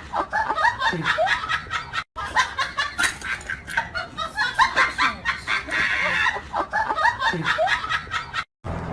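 People laughing hard in repeated fits. The sound cuts out abruptly twice, about two seconds in and near the end.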